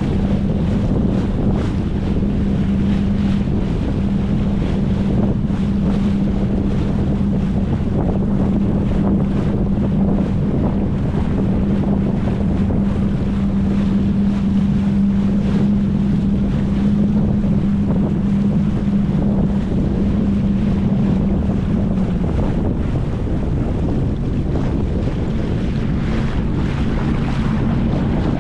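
Boat motor running steadily with a constant hum that shifts in pitch about three-quarters of the way through, under heavy wind noise on the microphone.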